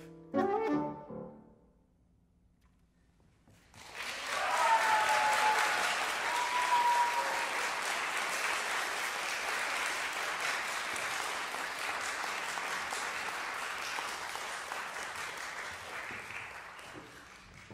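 The saxophone and piano close with a short final chord, followed by about three seconds of near silence. Audience applause then breaks out about four seconds in, with brief cheering over it at first, and slowly fades near the end.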